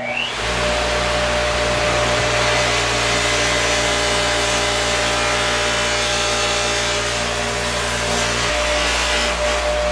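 Bauer 8-inch stationary buffer's 3/4 hp motor running at full speed, with sandpaper held against a new cloth buffing wheel: a steady scraping hiss over the motor hum as the sandpaper dresses loose strings off the wheel.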